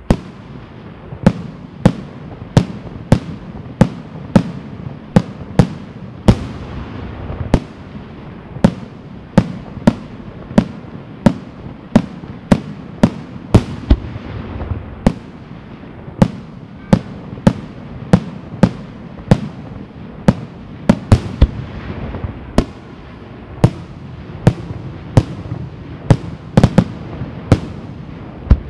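Aerial firework shells of a Senatore Fireworks display bursting in rapid succession, one sharp bang about every half second to a second, with a steady rumble between them.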